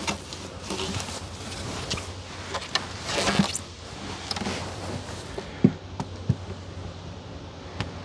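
Wooden beehive parts being handled: a rustle about three seconds in, then a few short, sharp knocks of wood on wood as a hive cover is set on the top box.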